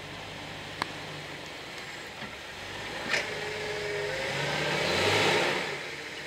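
A Jeep's engine pulling through an off-road obstacle; the engine builds over several seconds, joined by a rising rush of noise that peaks about five seconds in and then falls away. A single sharp click about a second in.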